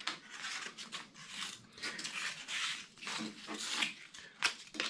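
Bare 5mm foam board parts rubbing and scraping against each other as they are prised apart and slid in and out of their slots, in a series of short rubs.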